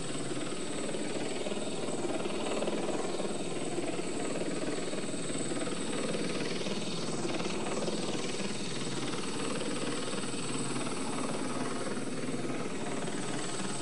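Helicopter flying, a steady dense rotor chop with a thin high whine above it. It is spatialised as 3D sound, so over headphones it moves around and over the listener's head.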